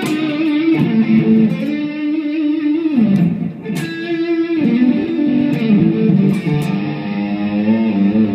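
Electric guitar, a 2007 Epiphone Les Paul Custom, played through an amplifier with its volume knob back at full: a run of sustained chords and notes ringing out and changing every second or so.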